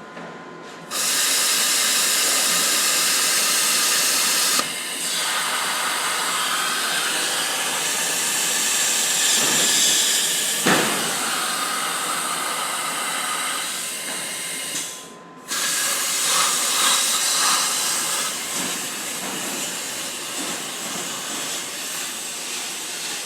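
Loud, steady hiss from shop equipment, starting abruptly about a second in. It breaks off for a moment about fifteen seconds in, then carries on a little quieter.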